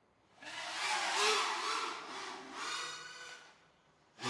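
A 5-inch FPV freestyle quadcopter's motors and propellers spinning up in two throttle bursts, a whining buzz that rises and falls. The pilots call the sound horrible and put it down to used, possibly damaged propellers.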